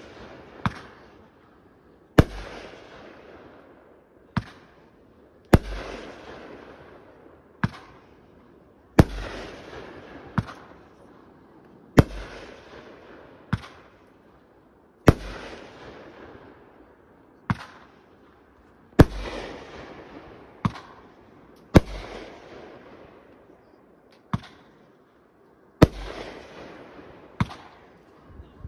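Fireworks display: aerial shells launching and bursting in a steady run of sharp bangs, about one every one and a half seconds. Each louder burst trails off in a few seconds of crackle.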